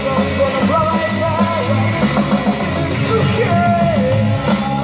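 Amplified live rock band playing during a sound check: a sung melody over steady bass and drums.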